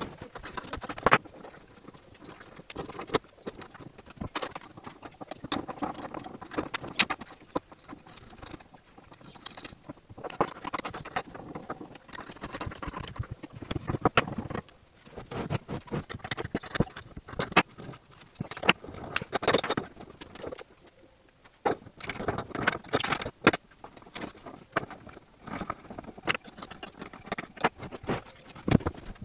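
Irregular clatter of knocks and metallic clinks as the clamp stops of a steel hive-assembly jig are moved to new holes and a pine hive box is shifted about in it.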